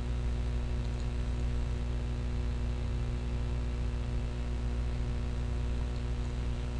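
Steady low electrical hum, several even tones with a faint hiss over them, unchanging throughout; background noise of the recording, no speech.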